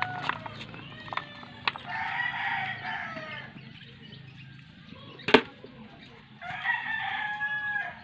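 A rooster crowing twice, each crow about a second and a half long: once about two seconds in and again near the end. Between them come a few sharp clicks of a metal fork against snail shells, the loudest about five seconds in.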